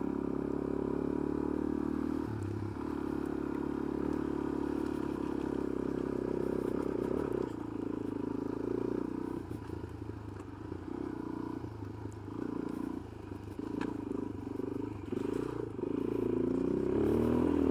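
2005 Suzuki DR-Z400S's single-cylinder four-stroke engine running as the bike is ridden. The note is steady for the first several seconds, then rises and falls with on-and-off throttle from a little under halfway.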